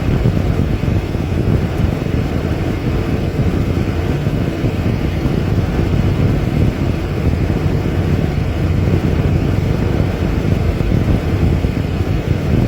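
Loud, steady low rumbling noise without any pitch.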